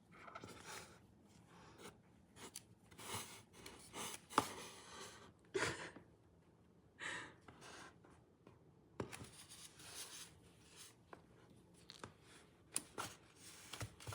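Cat tussling with a ribbon: irregular scratchy rustles and scuffs, with a few sharp clicks and knocks.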